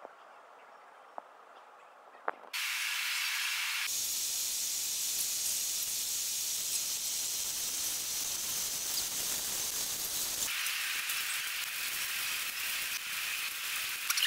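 Quiet with a few faint clicks, then about two and a half seconds in a large fuel fire in the burner chamber at the foot of a cedar-clad test wall is heard as a loud steady hiss, shifting abruptly in tone about four and ten seconds in, with light crackling toward the end.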